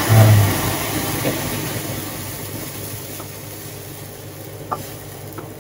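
Water poured into a pot of hot oil with fried garlic and chilli hissing and sizzling, the sizzle fading steadily as the water takes up the heat. A couple of faint taps near the end.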